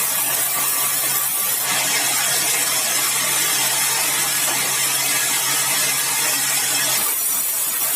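Sawmill saw cutting through a large, dry, hard red balau log: a steady, loud, hissing cutting noise over a low motor hum. About seven seconds in, the hum stops and the cutting noise drops.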